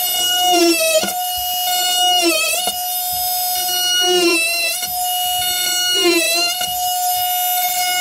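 Milwaukee cordless oscillating multi-tool running, its blade cutting an access hole in a ceiling with a steady high buzz. The pitch dips briefly several times as the blade bogs down in the cut.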